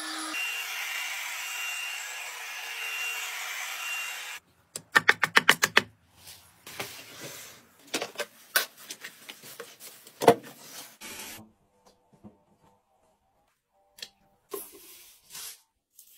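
Handheld mite vacuum cleaner running steadily on a pillow, cutting off about four seconds in. Then a quick run of about eight sharp plastic clicks, followed by scattered knocks and rubbing from hands pressing and handling a folded plastic collapsible tub, with one loud knock near the middle.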